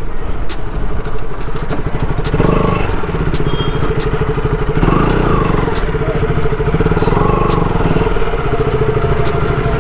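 Motorcycle engine running steadily, with a fast, even firing pulse.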